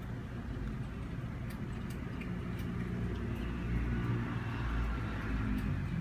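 Steady low background rumble with a faint hum, with a few faint ticks over it.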